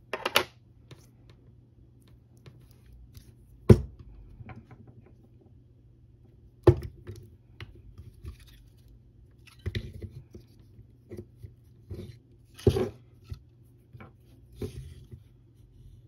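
Small hand tools and parts being handled on a workbench: a dozen or so irregular knocks, clicks and short scrapes, the loudest a few seconds in, over a steady low hum.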